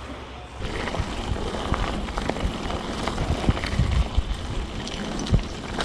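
Mountain bike riding down a gravel track: a steady crunch and rumble of tyres on loose gravel, with frequent clicks and knocks as the bike jolts over stones. It starts about half a second in.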